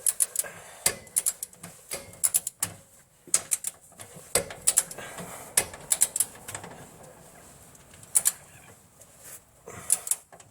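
A ratchet wrench clicking in short irregular bursts as it is swung back and forth, running a suspension bolt down.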